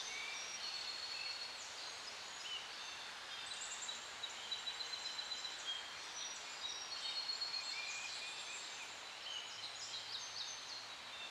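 Forest ambience: many birds chirping and whistling in short, overlapping high calls over a steady background hiss.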